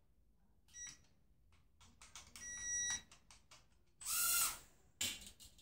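Short electronic beeps from a toy mini drone's handheld remote controller, each a steady high tone: a brief one about a second in and a longer one between two and three seconds in. Faint clicks come in between.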